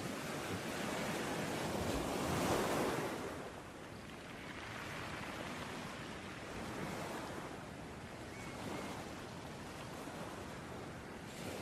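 Ocean waves breaking and washing on a beach: one louder wave crashes about two and a half seconds in and subsides, followed by softer, steady surf.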